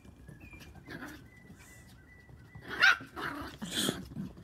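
Havanese dog barking: a few short, sharp barks in the second half, the loudest about three seconds in.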